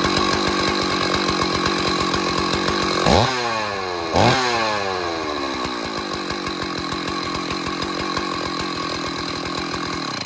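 Stihl 038 two-stroke chainsaw running just after a restart: idling, then blipped twice to high revs about three and four seconds in, each time sliding back down to idle, and dying away right at the end.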